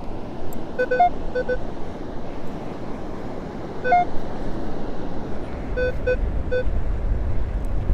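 Minelab Equinox 800 metal detector giving short beeps as its coil is swept over a dug hole, signalling a buried target. The beeps come in clusters about a second in, about four seconds in and about six seconds in, some stepping up to a higher note. Behind them is a steady rush of noise, with a low rumble rising near the end.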